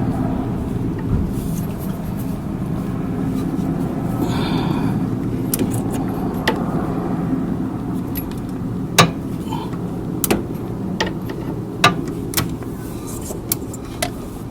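A car engine running steadily at idle, with several sharp clicks or knocks in the second half.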